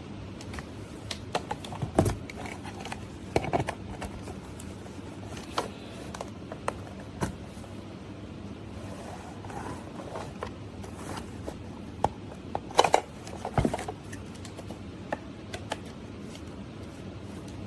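Irregular clicks, knocks and scrapes of objects being handled, loudest about two seconds in and in a cluster about three quarters of the way through, over a steady faint background hum.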